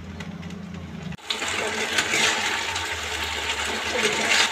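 Onion-and-capsicum gravy thickened with cornflour slurry, bubbling and sizzling hard in a kadhai on the flame. It comes in suddenly about a second in, after a low hum that cuts off.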